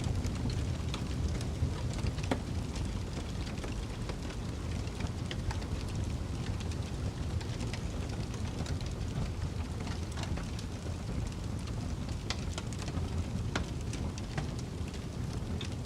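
Wood fire crackling in a fireplace: irregular sharp pops and snaps over a steady low rumble of snowstorm wind.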